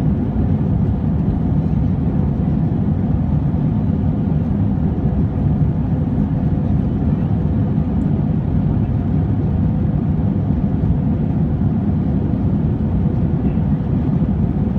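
Steady low cabin rumble of an Airbus A320-232 climbing after takeoff: its IAE V2500 turbofan engines running at climb power together with the rush of air past the fuselage, heard inside the cabin.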